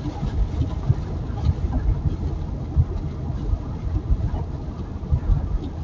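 Low rumble of a car driving, with uneven low thumps.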